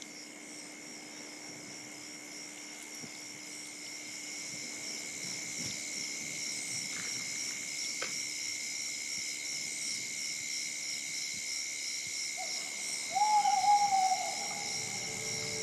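A steady, high, finely pulsing chorus of night insects, and about twelve seconds in an owl gives a short note followed by one longer, slightly falling hoot.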